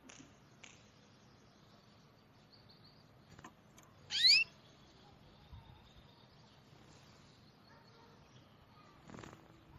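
Small birds calling, mostly faint, with one loud, quick upward-sweeping call about four seconds in.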